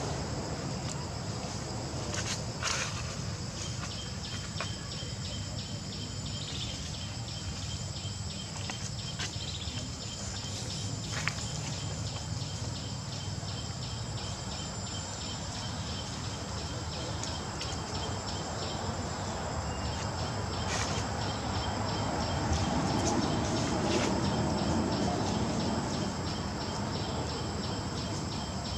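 Insects chirring steadily in the background: a constant high buzz with a rapidly pulsing trill beneath it, over a steady low outdoor rumble. A few faint clicks and snaps sound now and then.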